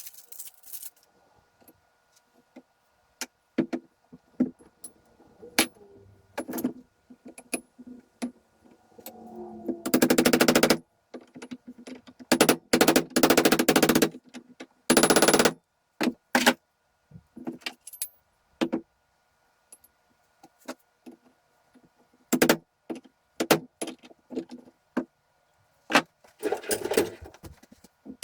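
A power impact tool hammering in short bursts of about a second each, several times, with scattered clicks and clanks of metal parts in between.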